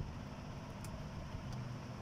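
Low steady background hum, with a single faint click a little under a second in from fingers pressing a phone's charging-port board into its frame.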